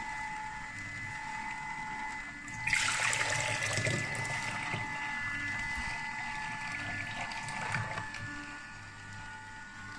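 An electric vertical juicer's motor runs with a steady hum. About three seconds in, the juice spout is opened and collected pomegranate juice gushes and splashes into a plastic jug. The pouring eases off near the end.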